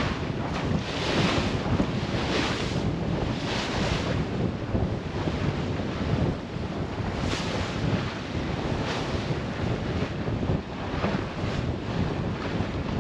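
Wind buffeting the microphone over a low rumble, with the rush and hiss of choppy waves washing along the hull of a sailboat under sail; a hissing surge of water comes every second or two as the bow meets the chop.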